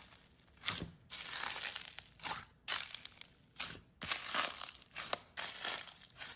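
A hand pressing into foamy, bubble-filled slime, the trapped air bubbles popping in a run of crackly bursts, about eight in all, each under a second long.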